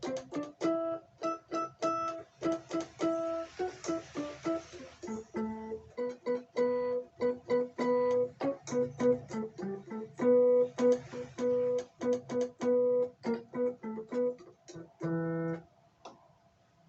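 Alesis Recital 88-key digital piano playing a quick line of short notes, several a second. It ends on a held chord about a second before the playing stops.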